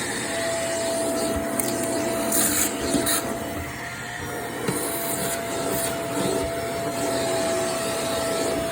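Vacuum cleaner running on stairs, its motor giving a steady whine, with the head rubbing over the treads and a few short hissy bursts in the first few seconds as debris is picked up.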